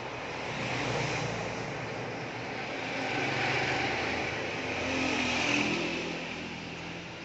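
Motor vehicles passing by, their engine and road noise swelling and fading about three times.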